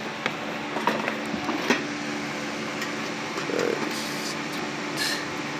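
Screwdriver clicking and scraping against the sheet-metal casing and screws of a toaster oven as a screw is worked loose, with a few sharp clicks early and short scrapes later, over a steady background hum.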